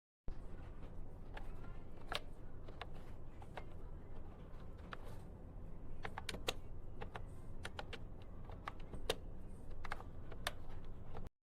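Typing on a wireless keyboard with round, typewriter-style keycaps: an uneven run of key clicks, some louder than others, over a low background hum.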